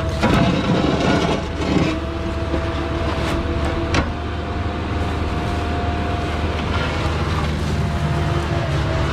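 Diesel engine of a compact excavator or skid steer running steadily under a held whine. Rough scraping and clatter come in the first couple of seconds, and there is a sharp knock about four seconds in.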